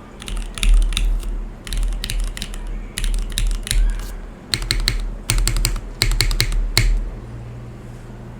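Typing on a mechanical keyboard built in an aluminium Bisoromi RS60 case with a carbon-fibre plate, stock Cherry MX Black linear switches and GMK doubleshot ABS keycaps. The keystrokes come in quick bursts of sharp clacks, each with a low thud under it, and stop about seven seconds in.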